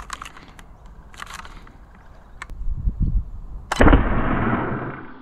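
ZWQ S100 spring-powered Nerf sniper blaster firing a dart: one sharp pop about three-quarters of the way in, followed by steady hiss. Before it come a few light clicks and low thumps from handling the blaster.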